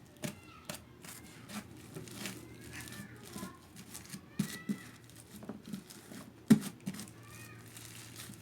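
Slime packed with microfoam beads being kneaded and squished by hand: irregular crackling clicks and soft squelches, with one louder squelch about six and a half seconds in.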